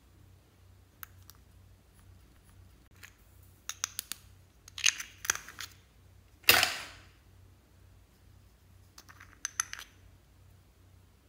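Small plastic glitter jars being handled: scattered light clicks and taps of the lid and jar, a cluster of quick taps as glitter is shaken out, and one louder sharp knock about six and a half seconds in.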